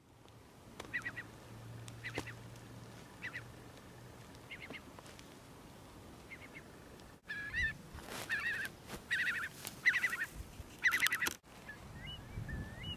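Eurasian curlew calling repeatedly over a marsh: short calls at first, louder from about seven seconds in, then rising whistled 'cour-lee' calls near the end.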